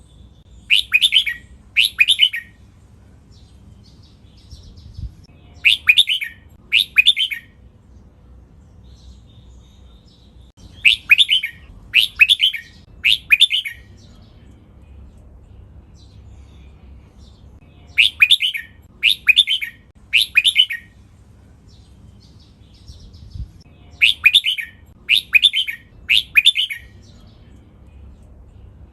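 Red-whiskered bulbul singing loud, sharp phrases: five bouts, each of two or three quick notes in a row, coming about every six seconds.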